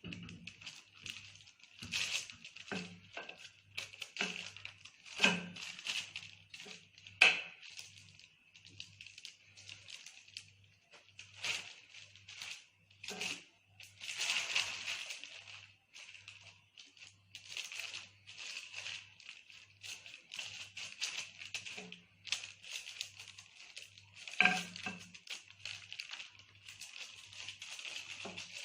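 Hands pressing and spreading pizza dough out in a baking tray: irregular soft taps, knocks and rustling, with a few sharper knocks, the loudest about five and seven seconds in.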